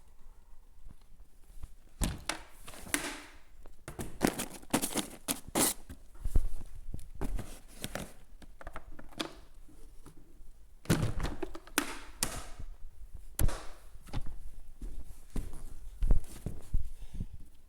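Irregular thuds, knocks and short scrapes of things being handled and moved about, with no vacuum motor running.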